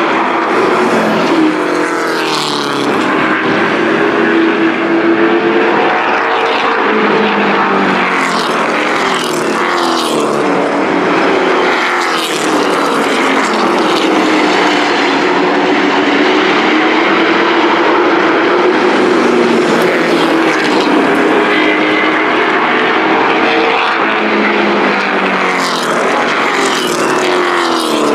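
A pack of pickup-bodied race trucks running at racing speed on a paved oval, engines rising and falling in pitch as they come off and into the turns. Trucks pass close by several times, each with a quick sweep in pitch.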